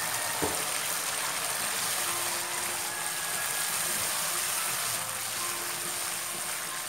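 Red chili sambal paste, just thinned with tamarind water, sizzling steadily in a nonstick wok while it is stirred with a spatula.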